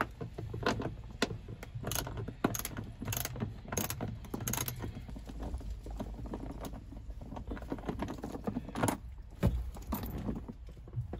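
Hand ratchet with a 10 mm socket clicking in short, irregular runs as the bolts of the pillar grab handle are backed out.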